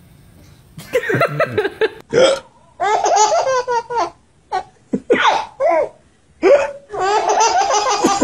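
Baby laughing loudly in a run of separate bursts with short breaths between them, starting about a second in.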